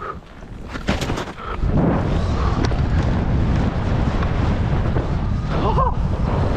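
Wind buffeting an action camera's microphone on a skier at speed through powder: a few sharp knocks and snow hiss from turning, then about two seconds in a loud, steady low rumble of wind takes over as the run straightens out.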